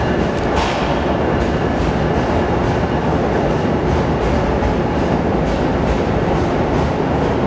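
Amtrak passenger train's stainless-steel cars rolling past on track: a steady, loud rumble of wheels on rail, with regular clicks about twice a second as the wheels pass over rail joints.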